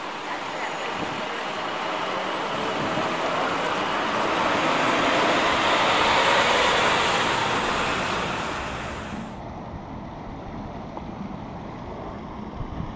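A road vehicle driving past, its noise swelling to a peak about six seconds in and then fading. A little after nine seconds the sound cuts off abruptly, leaving a quieter outdoor background.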